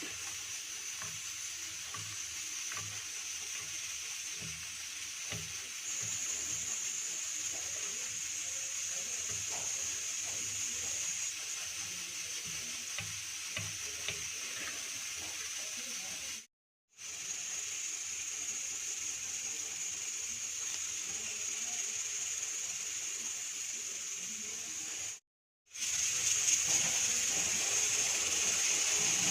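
Food frying in hot oil in a pan, a steady sizzle with scattered light ticks in the first few seconds. The sizzle breaks off twice for a moment and comes back a little louder near the end.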